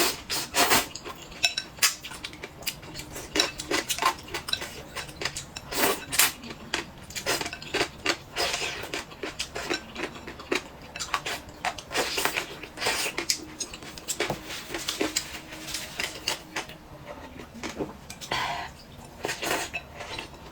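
Dishes and cutlery clinking and knocking many times at an irregular pace, as bowls, plates and utensils are handled and set down.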